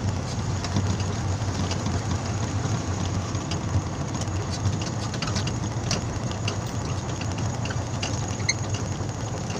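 Truck engine drone and road noise heard from inside the cab of a moving container truck: a steady low hum with scattered light ticks and rattles.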